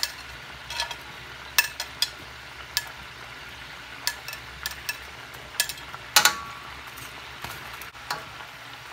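Suadero beef with nopales, chiles and onions sizzling steadily in a stainless steel pan, while metal tongs click and clatter against a glass bowl and the pan as sliced onion is dropped in. The loudest clank, with a brief metallic ring, comes about six seconds in.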